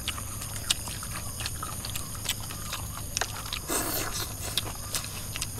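Close-miked eating of papaya salad: wet chewing and lip-smacking clicks from several people, with a short louder slurp about four seconds in.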